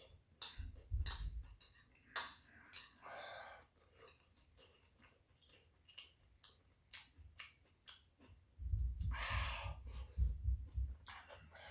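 Close-up eating sounds: chewing spicy rice cakes and shrimp, with breathing and many short, sharp clicks. The loudest stretch is a few seconds of noisy chewing with low thumps, starting about eight and a half seconds in.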